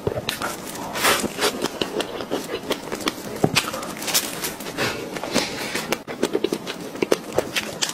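Close-up eating sounds of a person biting and chewing a soft cream cake with fresh strawberries and blueberries: many small wet mouth clicks and smacks throughout.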